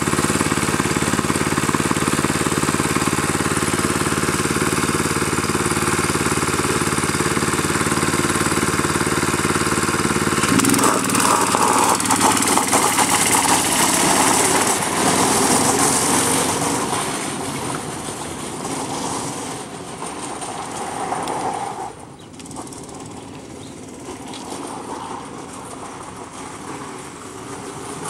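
A 165cc Yerf-Dog go-kart's small engine running steadily close by, then, about ten seconds in, picking up as the kart pulls away across gravel. It fades as the kart drives off and slides about in the distance, with gravel noise from the tyres.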